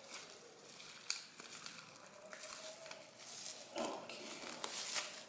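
Shipping packaging being handled and pulled open by hand: irregular rustling and crinkling with scattered sharp clicks and crackles.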